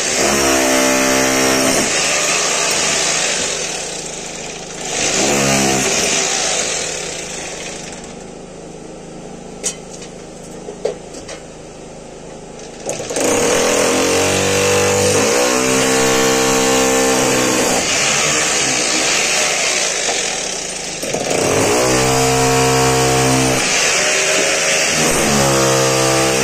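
Corded electric rotary hammer chiselling into masonry, run in several long bursts, its motor pitch rising as each burst starts. In a pause of about five seconds midway there are only a few small knocks.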